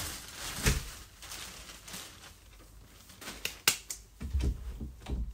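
A stuck interior door being worked at: its lever handle and latch clicking and hands knocking against the door, then several low thumps as it is pushed and slapped near the end, and it does not open.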